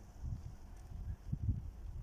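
Wind buffeting the microphone: irregular low rumbling gusts.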